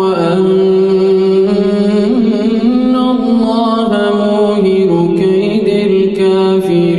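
A man's solo voice chanting Qur'an recitation in melodic tajweed style, drawing out one long unbroken phrase with slow rises and falls in pitch.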